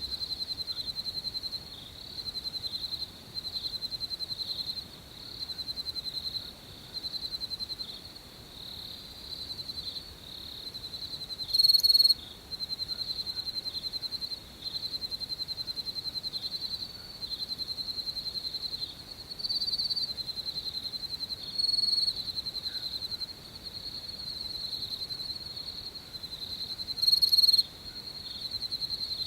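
Crickets chirping at night: a steady high-pitched pulsing trill in repeated phrases of about a second and a half with short breaks, with a few louder, closer chirps standing out.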